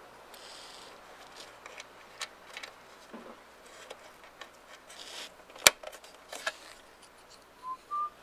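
Small white plastic clips from a headlight hardware kit being handled and pressed into the headlight housing: scattered light clicks and ticks, with one sharp snap a little after halfway through.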